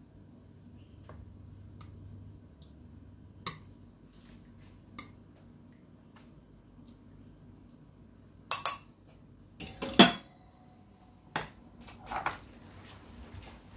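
Metal kitchen tongs clinking and knocking against a ceramic baking dish and a glass bowl as sausage pieces are lifted out and laid on the pasta. The clinks are scattered, and the loudest come in a quick cluster about nine to ten seconds in.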